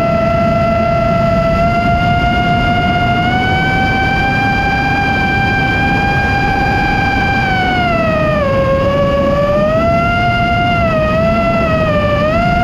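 Brushless motors and propellers of a five-inch Nazgul Evoque F5 FPV quadcopter whining in flight. The pitch climbs slightly a few seconds in, dips about eight seconds in and wavers near the end as the throttle changes.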